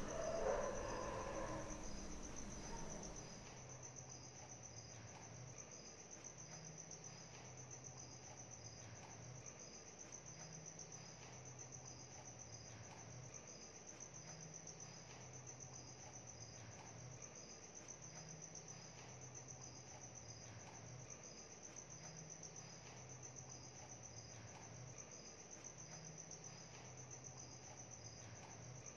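Faint night-time crickets chirping: a steady high-pitched trill with regular pulses, over a faint low hum that comes and goes. A louder sound fades out over the first few seconds.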